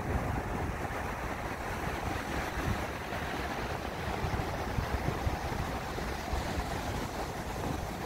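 Ocean surf breaking and washing up a sandy beach: a continuous, even roar of waves with no single break standing out.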